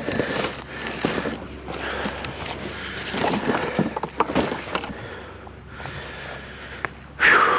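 Scrap being handled and loaded by hand: irregular rustling with many short clanks and knocks. A loud, brief squeal that falls in pitch comes near the end.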